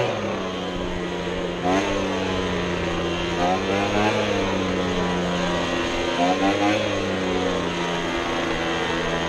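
Small gasoline engine of lawn equipment running steadily, its pitch rising and falling briefly three times as the throttle is blipped.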